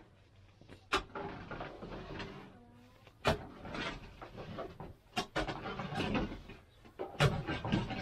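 Long-handled metal scoop scraping and knocking against a large pan of hot sugar syrup as the syrup is ladled out. The scooping sets up a rough clatter, broken by sharp knocks about two seconds apart.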